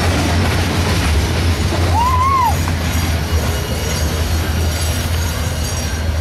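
Empty covered hopper cars of a freight train rolling slowly past on their wheels, a steady low rumble. About two seconds in there is a brief squeal that rises and falls.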